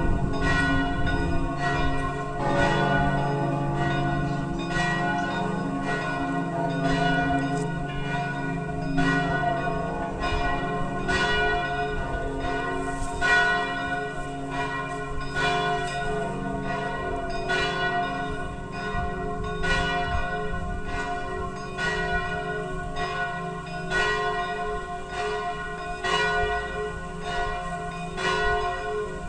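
Several church bells pealing together, struck one after another in a steady stream, their long ringing tones overlapping.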